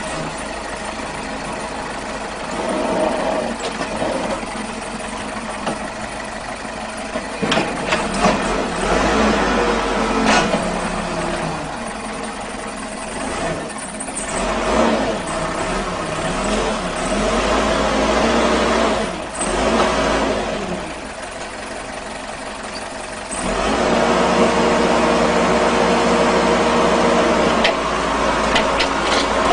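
Excavator's diesel engine running and revving up and down as it works, with a few sharp knocks along the way; it gets louder about three-quarters of the way through.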